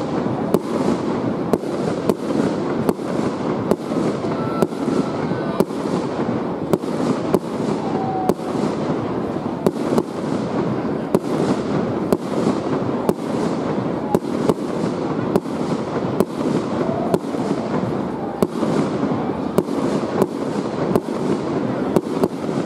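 Aerial firework shells bursting in a steady barrage, a sharp bang roughly every half second to second, over a continuous background din.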